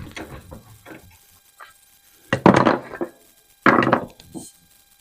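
Rifle parts and tools being handled on a workbench: a run of small clicks and knocks, then two louder clunks with a scrape, about 2.5 and 4 seconds in.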